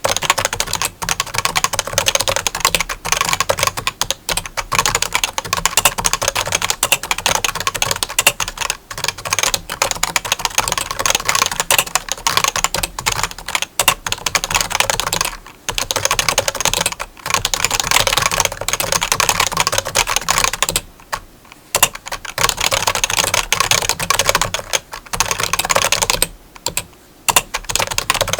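Fast typing on a keyboard: a dense, continuous clatter of key clicks, broken by a few short pauses, near the middle and toward the end.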